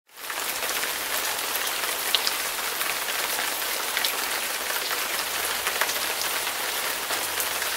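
Steady rain-like hiss with scattered faint ticks, fading in at the start and stopping abruptly near the end.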